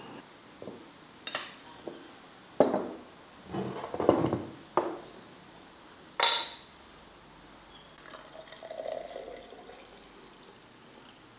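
A series of clinks and knocks of tableware (cutlery, plates and glass), the sharpest about six seconds in. From about eight seconds in, a drink is poured from a glass bottle into a tall drinking glass.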